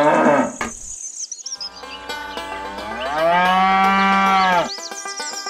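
A cow mooing: a moo falls away just after the start, then after a short gap one long moo rises, holds steady and stops abruptly.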